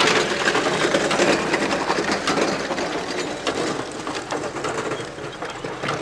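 Continuous rattling clatter of a horse-drawn farm implement at work: dense rapid clicks with no pause.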